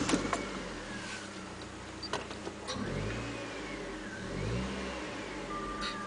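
Mazda Protege5's 2.0-litre four-cylinder engine just after starting, running and revved up briefly twice. The owner suspects it has an engine knock.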